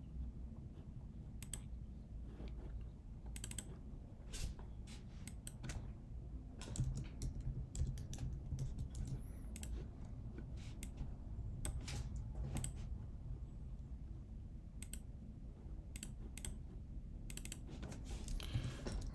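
Computer keyboard typing and clicks: irregular, scattered keystrokes over a low steady background hum.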